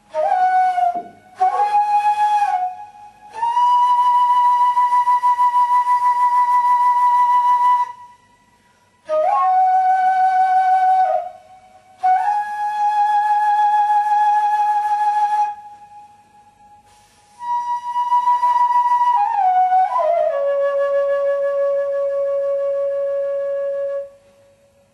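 A solo flute-type wind instrument playing slow phrases of long held notes with a light vibrato, with short pauses between phrases. In the last phrase the melody steps down to a long, lower held note.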